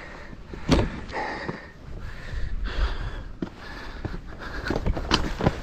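A hiker breathing hard while scrambling over rock, with the scuffs of moving over the rock. Two sharp knocks stand out, one about a second in and one near the end.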